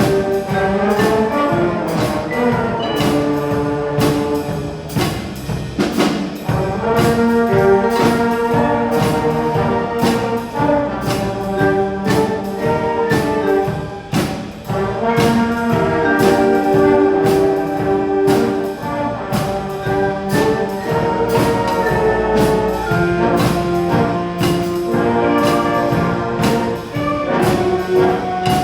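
Live middle school jazz band, with trumpets and trombones, playing a swing tune over a steady drum beat.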